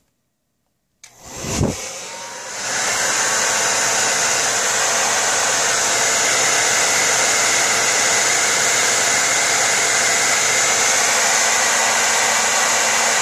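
Hair dryer switched on after a second of dead silence, with a thump, coming up to full speed about two and a half seconds in and then running steadily.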